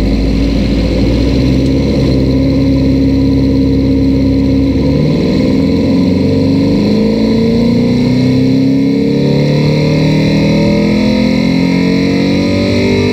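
Subaru flat-four engine on a chassis dyno, heard through det cans (a knock-listening microphone on the engine): running steadily at first, then rising steadily in pitch from about five seconds in as a full pull takes it up toward 6,000 rpm.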